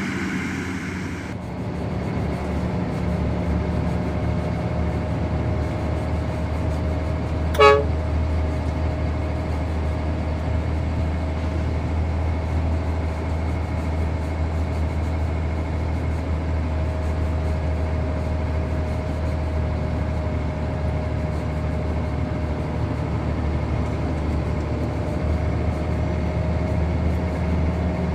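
Heavy diesel engine of a long-boom excavator running steadily with a low drone and a faint steady whine above it. One short sharp sound about eight seconds in.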